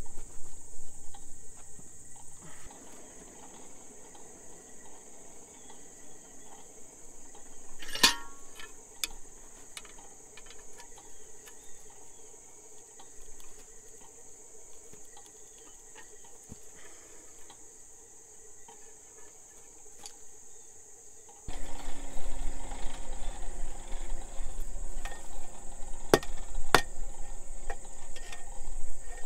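Crickets or other insects chirping steadily in the background while hot square steel bar is twisted in a bench vise with blacksmith tongs, with a single sharp metallic clink about a third of the way in. Near the end come several sharp knocks as the twisted bar is struck on an anvil.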